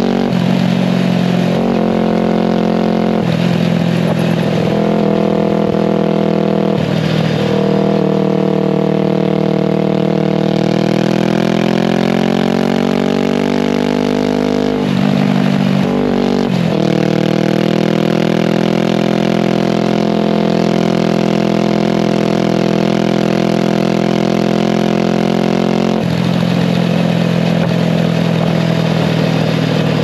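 Suzuki GS500's parallel-twin engine heard through an aftermarket Akrapovic exhaust, recorded close to the tailpipe under the licence plate while riding. The engine note climbs through the gears, with brief breaks at the shifts, then holds steady at a cruise before changing again near the end.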